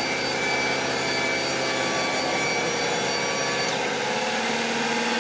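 Subaru Sambar kei truck's dump-bed hydraulic pump running with a steady whine as the ram lifts the bed. Near the end the higher part of the whine cuts off, leaving a lower steady hum.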